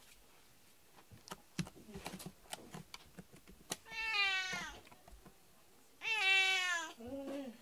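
Domestic cat meowing twice: drawn-out falling 'naa' calls about four and six seconds in, the second louder. They are the cat's attention-seeking night calls asking to be petted. A few faint clicks come before the calls.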